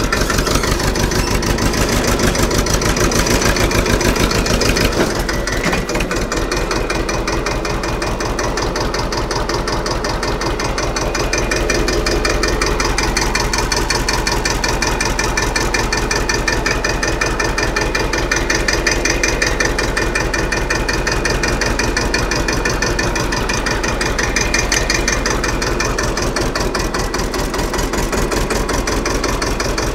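Tafe 25 DI tractor's diesel engine running with a steady, even firing beat, a little quieter after about five seconds.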